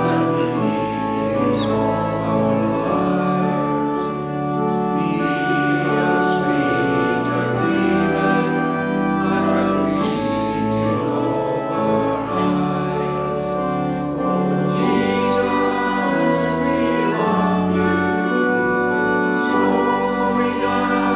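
Church organ playing long held chords as a congregation sings a hymn.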